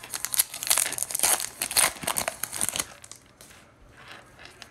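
Plastic wrapper of a 2021 Bowman Sapphire baseball card pack crinkling and tearing as it is ripped open. The dense crackling lasts about three seconds, then dies down to faint handling.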